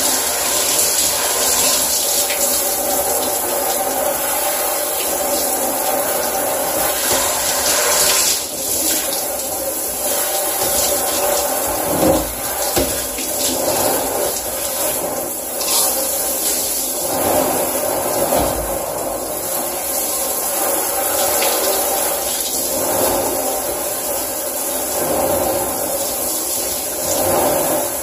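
Water spraying from a handheld shower head onto a piece of furniture and the shower floor: a steady rush of running water, its tone shifting now and then as the spray is moved.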